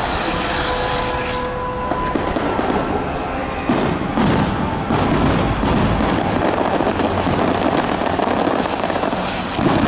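Fireworks display: aerial shells bursting in a continuous barrage, with sharper bangs about four seconds in and again near the end.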